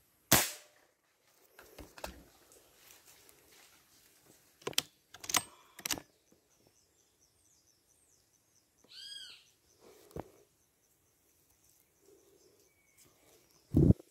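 Beeman 1336 air rifle firing: a sharp crack about a third of a second in, followed a few seconds later by a quick series of clicks and knocks. A short whistled bird call is heard once in the middle, and a second loud report comes just before the end.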